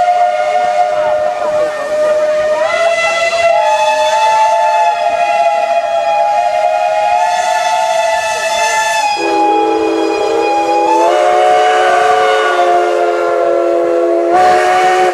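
Several steam locomotive whistles blowing together in long, overlapping blasts that form a shifting chord, as a farewell salute. About nine seconds in, a deeper whistle takes over the chord, and the whistling stops abruptly at the end.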